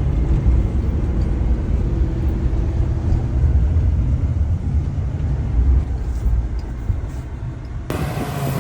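Heavy diesel engine running steadily under load, a deep low rumble. The sound changes abruptly near the end.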